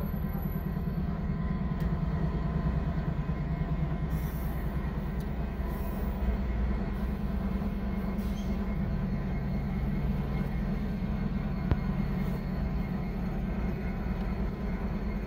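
Union Pacific diesel-electric locomotives passing slowly, their engines making a steady low drone over the rumble of the train, heard through a car's windshield. About nine seconds in, the drone drops to a lower pitch as the next locomotive comes by.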